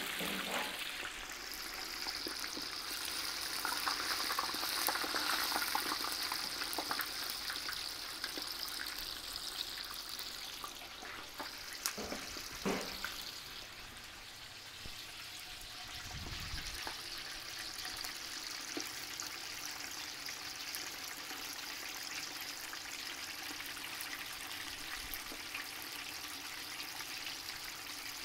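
Chicken drumsticks deep-frying in a pot of oil still at about 450 degrees with the propane burner off, a steady bubbling sizzle. A few clicks and a brief low thump come near the middle.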